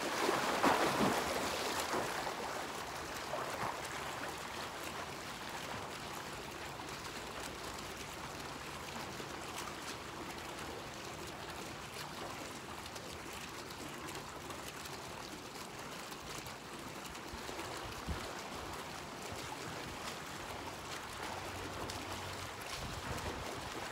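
Splashing of a swimmer starting front crawl in an outdoor pool, loudest in the first two seconds. It then fades into a steady wash of moving water as he swims away.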